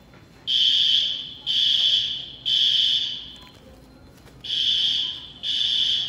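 Building fire alarm horn sounding high-pitched blasts in a repeating three-beat pattern: three blasts, a pause, then the next set begins. This is the temporal-three evacuation signal, here set off during a test of the alarm system from its panel.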